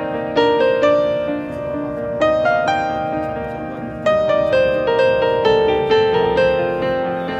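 Soft background piano music: single notes and chords struck and left to fade, with fresh chords about every two seconds.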